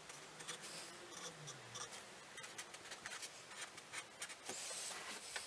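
Black marker pen writing on birch plywood: faint short scratchy strokes as letters and arrows are drawn, with one longer stroke near the end.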